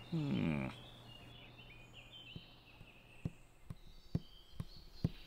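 A short voiced sound sliding down in pitch, then the light, regular cartoon footsteps of two small characters walking, about two steps a second, with faint birdsong chirps behind.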